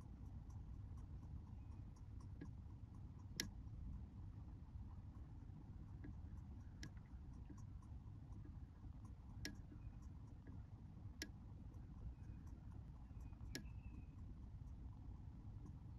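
Faint low background rumble with scattered tiny ticks and five sharper clicks a few seconds apart, the first the loudest.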